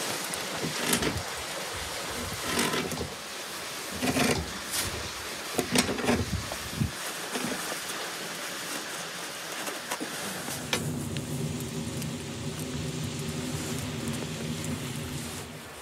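A small engine running, with many sharp knocks and clattering over the first seven seconds; from about eleven seconds in a steadier, even hum that stops just before the end.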